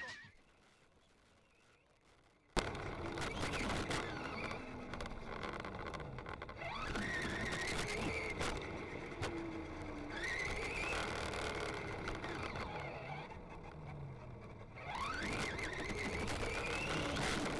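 After about two and a half seconds of near silence, the brushless electric motor of an RC truck (Castle Creations 7700kV in a Traxxas Rustler) starts suddenly, heard close up from a camera on the truck. Its whine rises steeply in pitch three times as the truck accelerates and falls away between, over a steady noise of tyres on asphalt.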